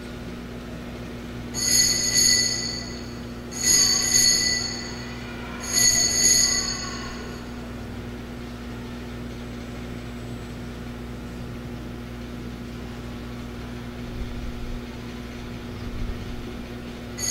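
Altar bells (sanctus bells) shaken three times, about two seconds apart, each ring lasting about a second and a half. They mark the elevation of the host at the consecration. A steady low hum runs underneath.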